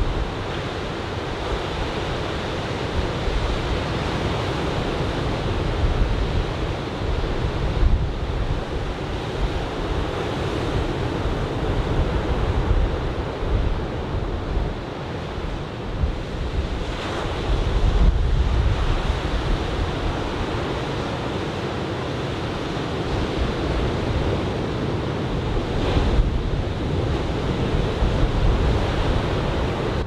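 Ocean surf breaking and washing ashore, a steady rush that swells louder now and then, with offshore wind buffeting the microphone as a low rumble.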